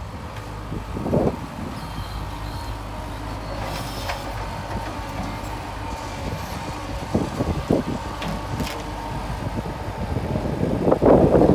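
Compact tractor with a front loader running as it drives by close, its engine hum growing louder as it nears. A few short knocks along the way, and a louder rattling clatter near the end as it passes closest.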